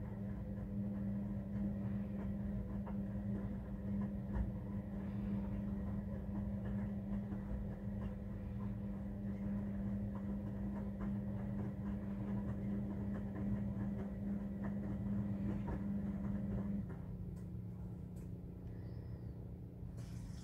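Steady machine hum with a low, even tone, which drops sharply in level about seventeen seconds in, as if a motor switched off.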